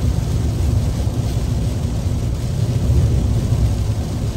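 Steady low rumble of a car driving at highway speed, heard from inside the cabin, with tyre hiss from the rain-soaked road and rain on the windshield.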